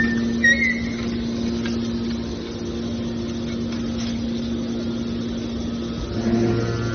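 Hydraulic scrap-metal baler running, its pump motor giving a steady hum. There is a brief high squeak in the first second, and the sound grows louder with a deeper hum near the end.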